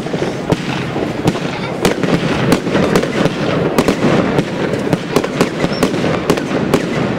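Aerial fireworks going off in the night sky: irregular sharp bangs, about one or two a second, over a continuous dense crackle.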